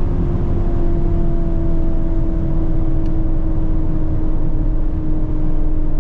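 Lamborghini Urus SE's 4.0-litre twin-turbo V8 holding a steady engine note in one gear at high speed, over deep road and wind rumble.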